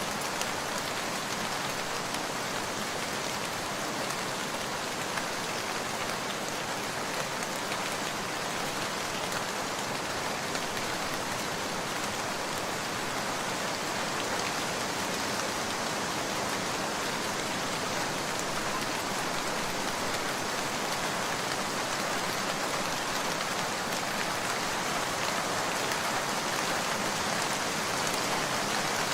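Steady rain falling: an even, unbroken hiss of many drops, with no thunder.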